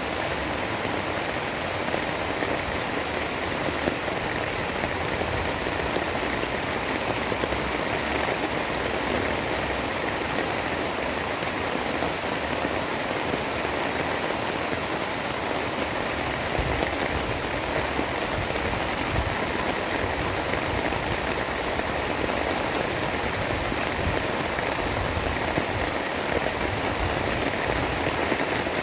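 Steady, heavy rain: an even hiss of rainfall with fine pattering drops and no let-up.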